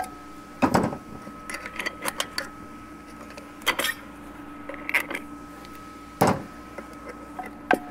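Irregular metallic clinks and knocks as hand tools and clutch parts are worked inside a heat-seized 4L80E automatic transmission that will not come apart, over a steady low hum. The two loudest knocks come about a second in and near the end.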